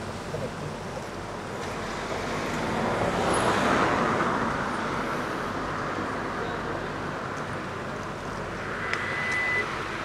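Street traffic noise: a vehicle passing, swelling to its loudest about three to four seconds in and then fading. A short steady high tone sounds near the end.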